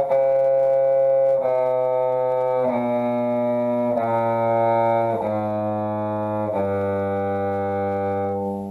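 Bowed string instrument playing a slow chromatic scale warm-up, stepping down one even sustained note at a time, about a second and a quarter per note. The last note is held a little longer and stops near the end.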